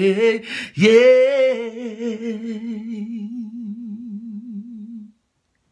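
A man singing unaccompanied, drawing out "yeah" into one long held note with an even vibrato that slowly fades away and stops about five seconds in.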